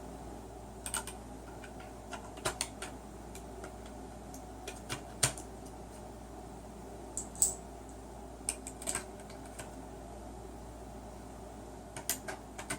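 Cartridges being pressed one at a time by thumb into a 30-round Magpul PMAG polymer AR-15 magazine: sharp, irregular clicks a second or two apart, about eight of them, over a steady low background hum.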